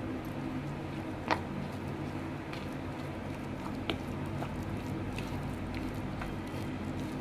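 Thick gram-flour batter with chopped onion, tomato and spices being worked by hand in a bowl after a little water is added: soft wet squishing, with a light click about a second in and another near four seconds.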